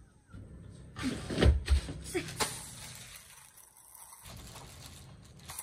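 Off-camera handling noise: rustling with a few dull knocks about a second and a half in, then quieter rustling.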